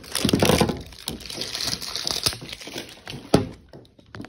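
Rustling and crinkling of toy packaging and wrapping paper being handled, with one sharp knock a little past three seconds in.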